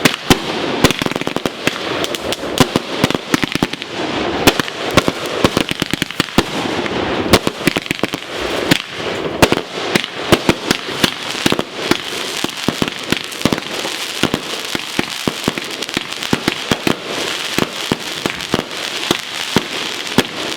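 Fireworks going off in a long, continuous run of rapid sharp pops and crackles, many cracks a second.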